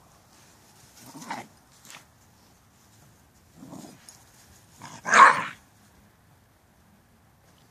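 Shiba Inu dogs giving a few short barks, three in all, the last one about five seconds in much louder than the others.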